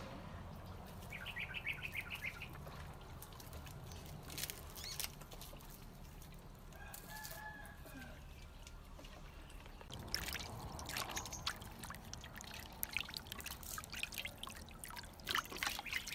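Water sloshing, splashing and dripping in a large steel bowl as chicken feet are washed by hand. The splashes grow busier and louder from about ten seconds in, as the feet are lifted out dripping. Bird calls are heard twice in the background, a quick rattling call early on and a longer pitched call about seven seconds in.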